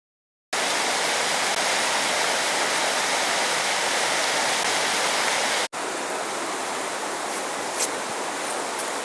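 Mountain river rushing over boulders and through rapids, a steady even roar of water. It starts abruptly half a second in, drops out for an instant about halfway through, and goes on a little softer.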